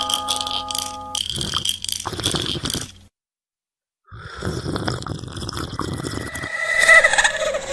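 Horror sound effects: a bell chime dies away over rough, rhythmic scraping and crunching noises, which stop dead about three seconds in. After a second of silence, a harsh noisy sound comes in and builds into wavering, moaning tones near the end.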